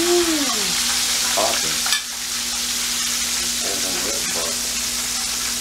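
Flour-coated fish fillets frying in hot oil in a skillet, a steady sizzle, with a single sharp click just before two seconds in.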